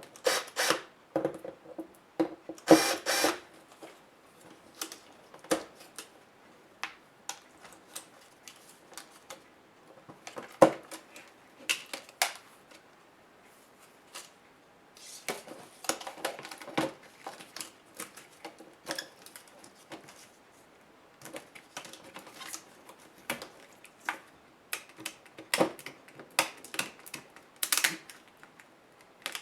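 Toshiba Satellite A505 laptop parts being handled and pried apart by hand: irregular clicks, taps and short scrapes of plastic and small metal pieces. They come in clusters with short pauses in between.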